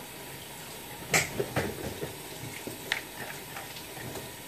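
Kitchen containers and utensils being handled: a few sharp knocks and clicks, the loudest about a second in, another soon after and one near three seconds.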